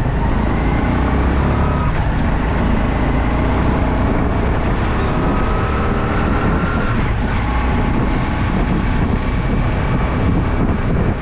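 Motorcycle engine running steadily while riding along a city road, with a constant low rumble of wind and road noise and other traffic around.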